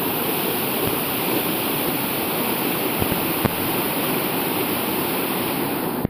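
Rushing water, a steady loud rush of falling or fast-flowing monsoon water, which cuts off abruptly at the end.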